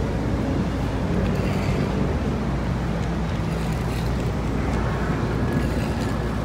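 Steady low rumble of outdoor background noise with no distinct single event.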